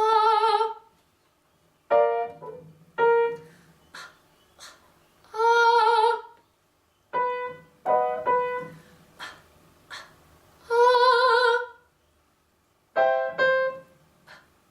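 Vocal warm-up exercise on piano and voice, repeated about every five and a half seconds: the piano plays a chord and a single starting note, two short fake coughs follow, then a singer holds one note with vibrato for about a second.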